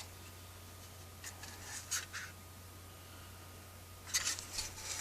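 Faint handling noises of a replacement projection TV lamp unit being turned over in the hands: a few short scrapes and rubs over a low steady hum.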